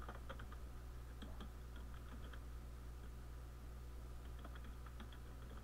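Computer keyboard keys being typed in a few short clusters of clicks over a steady low hum.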